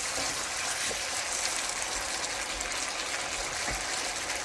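Tomato-based sauce with vegetables sizzling and bubbling in a frying pan, a steady hiss with fine crackle.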